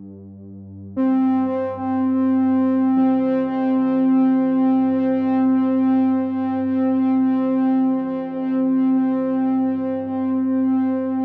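Background music: a sustained synthesizer chord that swells in fuller about a second in and holds steady, with a change of the lower notes about three seconds in.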